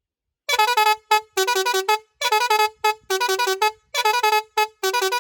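Roots HexaTone multi-tone electric car horn playing one of its tune patterns: a quick run of stepped notes repeated about three times, starting about half a second in.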